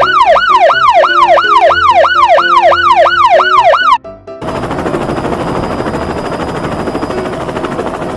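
Electronic police-style siren sounding in quick falling sweeps, about three a second. At about four seconds it cuts off and a steady whirring helicopter rotor noise takes over.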